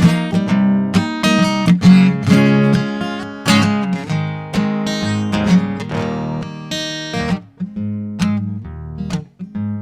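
Acoustic guitar strummed in an instrumental break with no vocals, in steady chords that thin out to fewer, softer strums for the last couple of seconds.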